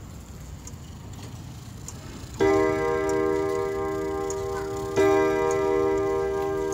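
Gustav Becker wall clock striking on four gong rods hit together as one chord, twice, about two and a half seconds apart, each stroke ringing on and slowly fading. Faint pendulum ticking before the first stroke.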